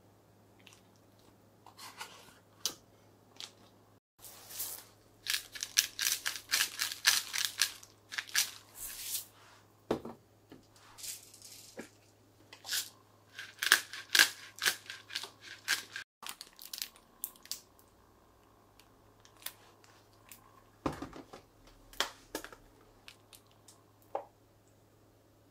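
Salt and pepper grinder being twisted over an open plastic zipper bag: two spells of rapid grinding clicks, the first starting about four seconds in and the second around the middle, with a few lighter clicks and plastic handling noises around them.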